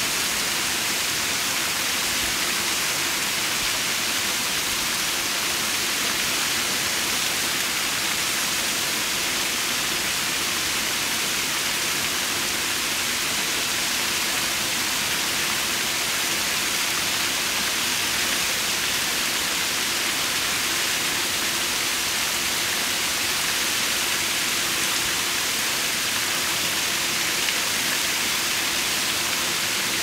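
Running water making a steady, even rush, with no separate splashes or drips.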